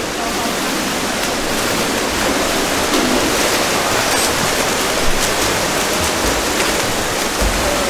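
Pool water splashing and churning as water polo players swim and wrestle for position, a steady rush of noise.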